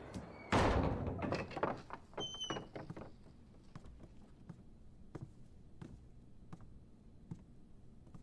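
Heavy wooden double gates shutting with a loud thud about half a second in, followed by a couple of seconds of smaller knocks and rattles with a brief squeak, then a few faint clicks.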